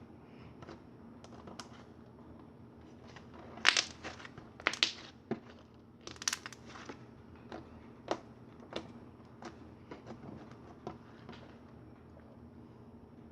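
Slime being squished and poked, making scattered clicks and crackling pops, with a cluster of louder pops a few seconds in.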